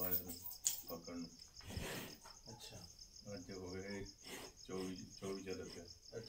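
Crickets chirring steadily, a high pulsing trill, under low voices speaking in short phrases, with a short noisy rush about two seconds in.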